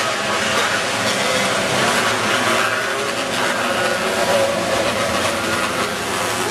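Several winged sprint car engines running hard together as the pack races around a dirt oval: a loud, steady, blended engine drone.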